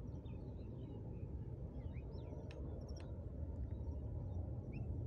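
Distant jet airliner climbing away after takeoff: a steady, low engine rumble that grows a little louder, with faint bird chirps scattered over it.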